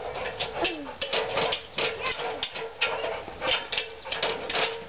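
Dog's paws and claws knocking and clattering on the rungs of an aluminium extension ladder as it climbs, a string of sharp irregular knocks over a steady hum.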